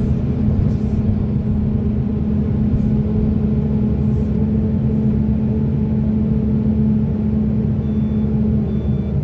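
Large diesel hydraulic excavator engine running steadily under work, a loud, even drone. About eight seconds in, a truck's reversing alarm starts beeping.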